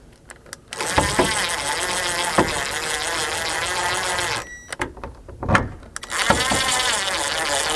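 Cordless drill-driver buzzing in two runs as it drives in the screws of a car's dome light cover plate: one from about a second in until past four seconds, and another starting about six seconds in. There are a few sharp clicks in between.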